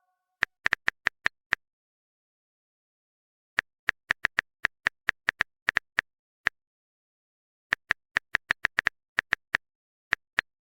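Short sharp clicks in irregular runs: six in the first second and a half, a quicker run of about a dozen from about three and a half seconds in, and another run near the end, with dead silence between them.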